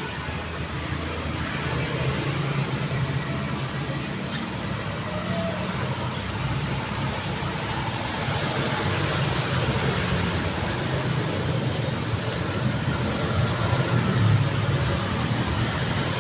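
Steady road traffic: a constant wash of tyre and engine noise from passing cars, with a low engine rumble that swells a little louder in the second half as vehicles pass close.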